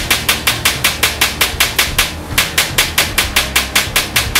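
Standard Manufacturing G4S .22LR semi-automatic rifle, fed from a 50-round drum, firing in a fast, even string of about seven shots a second, with a brief pause about two seconds in.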